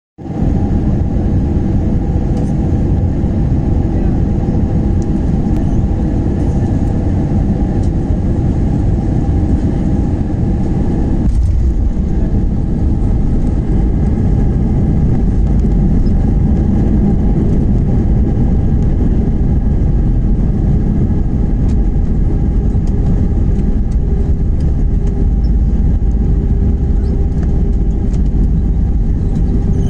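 Airliner cabin noise during landing: a loud, steady rumble of engines and rushing air with a few steady hum tones over it, which briefly drop out about eleven seconds in.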